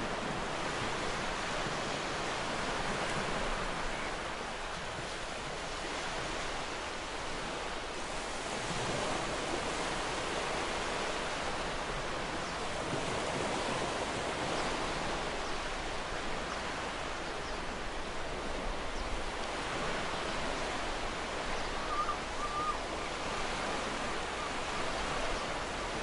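Ocean surf washing onto a sandy beach: a steady hiss of breaking and receding waves that swells and eases gently every few seconds.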